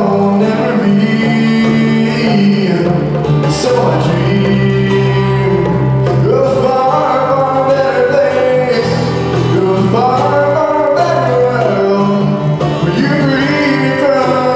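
Live band playing a song: a male voice singing over guitar, with bongos played by hand.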